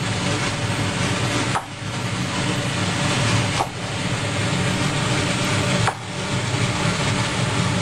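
Cleaver knocking on a wooden chopping board as tomatoes are cut into quarters, four sharp knocks about two seconds apart over a steady rushing background noise.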